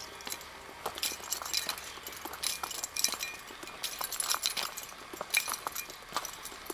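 Irregular light clinking and ticking, many small sharp clicks at uneven intervals.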